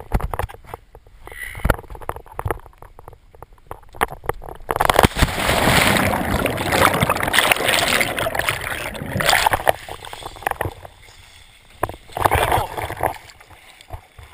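A person jumping feet-first into the sea with the camera: a few knocks of handling, then about five seconds in a sudden loud splash of entry followed by several seconds of rushing, gurgling bubbles underwater. Near the end, quieter water sloshing as the camera breaks the surface.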